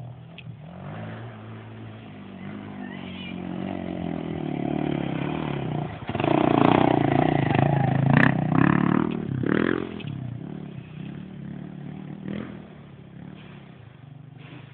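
Dirt bike engine approaching and growing steadily louder, loudest around the middle as the bike climbs the bank past, with a few sharp knocks, then fading away.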